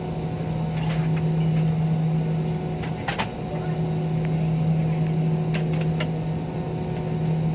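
Steady cabin drone of an airliner, a constant low hum with a few short clicks.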